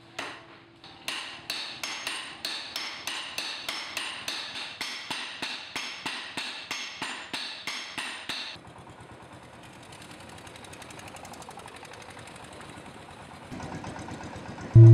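Hand-forging: a hammer striking a red-hot steel blade held with tongs on an anvil, at about three blows a second, each blow ringing with a metallic clang. The hammering stops suddenly about eight and a half seconds in, leaving only faint steady background noise.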